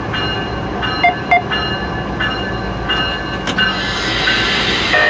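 Diesel freight locomotive heard from inside its cab while rolling slowly through a yard: a steady rumble with high squealing tones from the wheels that come and go. Two short sharp beeps about a second in, and a hiss rising near the end.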